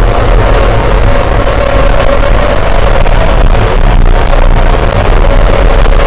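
Music track: a loud, unbroken wall of distorted noise with a deep low rumble under it and a held mid-pitched tone.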